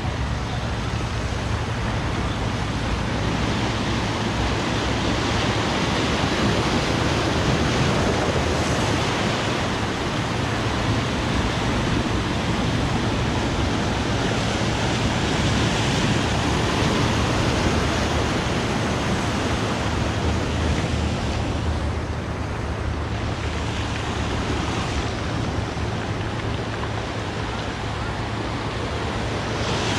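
Sea surf washing steadily on the shore, swelling and easing every few seconds over a constant low rumble.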